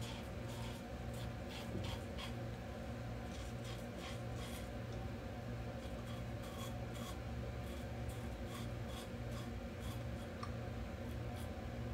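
Open-comb double-edge safety razor scraping stubble off the lathered upper lip in quick, short strokes: a faint, crisp rasp repeated several times a second.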